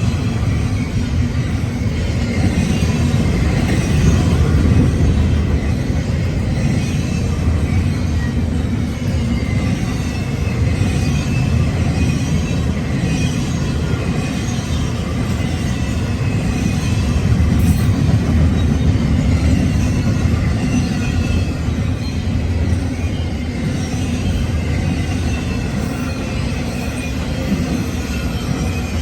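Union Pacific intermodal freight train rolling past at speed: a steady rumble of wheels on rail, with faint high wheel squeal over it.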